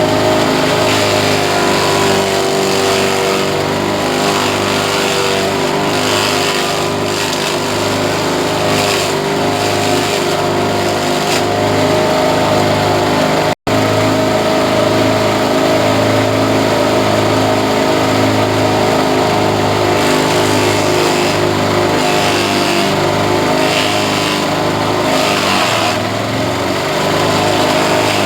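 Engine-driven grass chopper running steadily at constant speed, with an even pulsing throb under its drone. The sound cuts out for an instant about halfway through.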